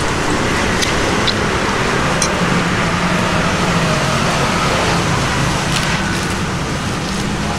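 Steady roadside traffic noise: the continuous hum of passing vehicles, with a few faint clicks.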